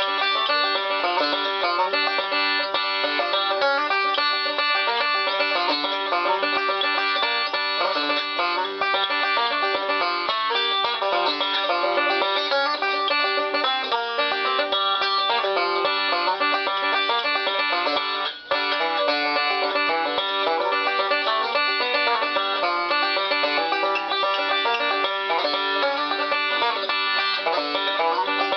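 Banjo strung with 9.5-gauge strings, its head tightened to 90 pounds, tailpiece down and a bone bridge, played in a steady stream of picked notes to try out this tight setup. The playing breaks off briefly about 18 seconds in.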